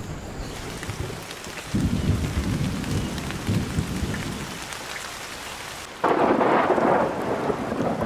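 Thunder rumbling through a rainforest storm, then heavy rain hissing down, coming in suddenly and louder about six seconds in.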